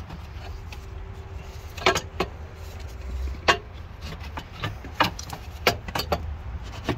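Scattered clicks and knocks, about seven, of a Ford 6.7 Powerstroke's metal upper intake manifold being wiggled and worked loose by hand, over a low steady rumble.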